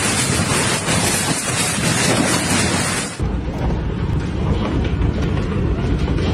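Hail pelting down in a storm, a dense steady clatter of hailstones. About three seconds in the sound changes to a lower, heavier din with scattered sharp knocks as hail lands on a backyard and splashes into pool water.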